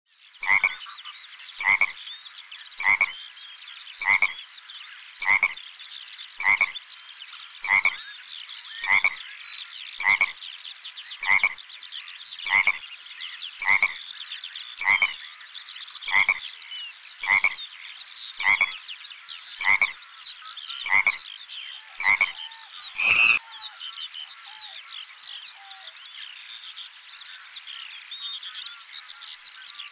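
A frog croaking in a steady rhythm, about one croak every 1.2 seconds, over a dense background of high chirping. About 23 seconds in, a single sharp, loud sound cuts in and the croaking stops, leaving only the chirping.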